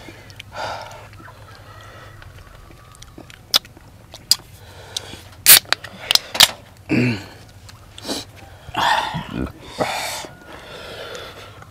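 Sharp metallic clicks as an aluminium beer can's pull-tab is worked and cracked open, the loudest about halfway through. Short breathy mouth sounds and a brief falling grunt follow.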